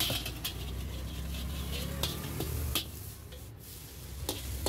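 Metal spatula scraping and clinking against a large steel kadai as scrambled egg bhurji is stirred, with a sharp clink every second or so. A steady low rumble runs underneath, dipping briefly past the middle.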